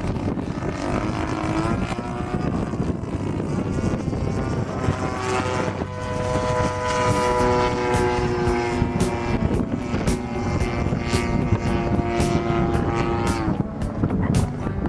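DLE-55cc single-cylinder two-stroke gas engine and propeller of a 27% Yak-54 RC plane running in flight. The engine's pitch shifts in the first seconds, holds steady for several seconds in the middle, then changes again near the end.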